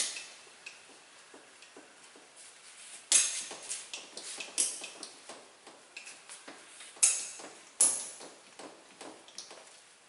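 Whiteboard duster wiping across a whiteboard in a series of quick strokes, with several louder swipes from about three seconds in.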